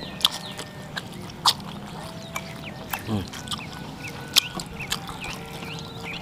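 Close-up eating sounds: wet chewing and lip smacks on a mouthful of tofu and rice, with sharp clicks scattered irregularly throughout.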